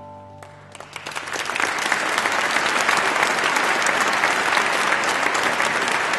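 A large audience applauding. The last of the choir's sustained final chord fades in the first half second, then the clapping swells quickly and holds as full, steady applause.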